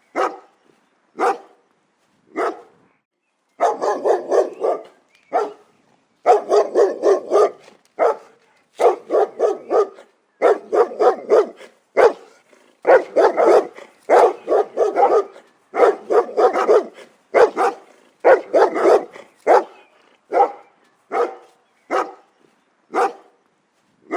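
Dog barking. A few single barks give way to quick runs of several barks each, and then to single barks again near the end.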